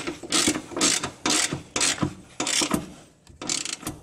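Hand ratchet clicking in repeated strokes, about two a second, as it tightens the bolts of a driveshaft carrier bearing.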